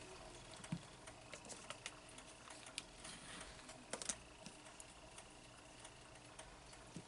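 Faint light clicks and taps of tools on a metal Konad m25 nail-stamping plate, with a short scrape around three to four seconds in as excess nail polish is scraped off the plate.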